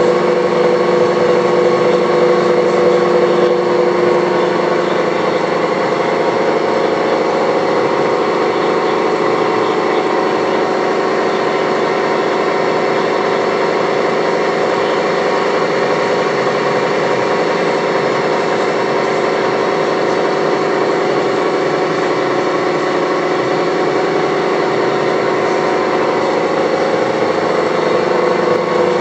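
Horizontal boring mill running, its spindle turning a boring head that machines down the worn front end of a Volvo gearbox input shaft. A steady machine hum with several steady whining tones; the lower tones ease off after about five seconds.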